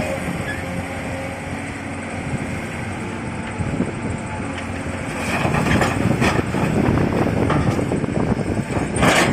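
An old Komatsu PC200 excavator's diesel engine running steadily, then getting louder and rougher about halfway in, with clattering and knocking, and a loud clank near the end.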